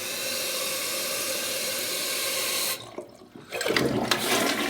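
A steady hiss of running water, then, after a brief drop about three seconds in, a toilet flushing with loud rushing water. The toilet is being test-flushed after hard-water deposits were cleared from its jet holes.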